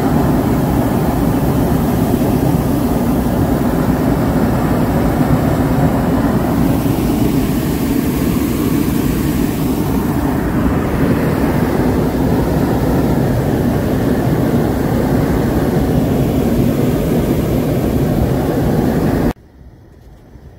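Hot air balloon's propane burner firing in one long, steady, loud roar that cuts off suddenly near the end.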